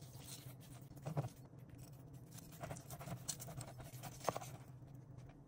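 Knife sawing through grilled tomahawk steak against a plastic cutting board: faint scraping strokes, the clearest about a second in and again just past four seconds, over a steady low hum.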